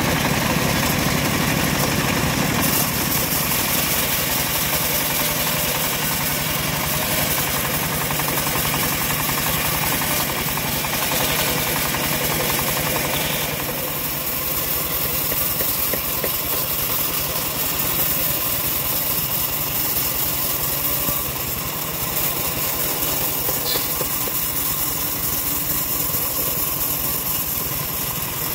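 Homemade bandsaw sawmill running steadily, its blade sawing lengthwise through a large log with a continuous machine drone. The sound shifts about halfway through, losing some of its middle range.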